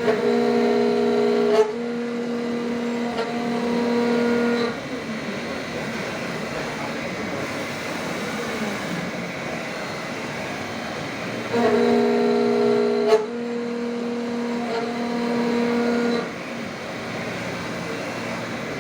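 CNC milling machine face-milling S355 steel with a high-feed face mill carrying six carbide inserts, at maximum feed. A pitched whine lasts about four and a half seconds, with a sharp tick about a second and a half in, over steady machining noise. The same pattern comes again about eleven seconds later, as the cutter makes another pass.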